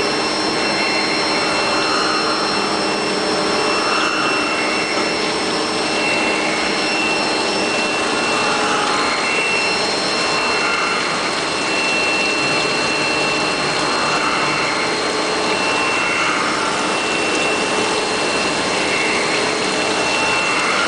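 CNC surface grinder running: a steady hiss with a high whine from the spinning grinding wheel, swelling and fading about every two seconds as the table strokes back and forth.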